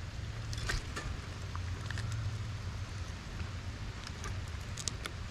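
Steady low wind rumble on the microphone, with scattered faint ticks and taps.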